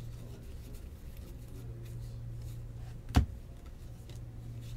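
Faint rustle of trading cards being handled and sorted over a steady low hum, with one sharp knock about three seconds in.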